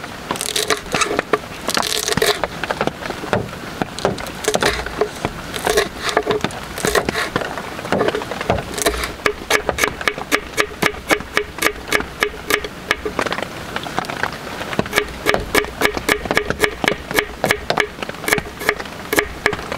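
Kitchen knife chopping garlic and green chilli on a wooden cutting board: irregular cuts at first, then a quick, even run of chops, about four or five a second, from about nine seconds in.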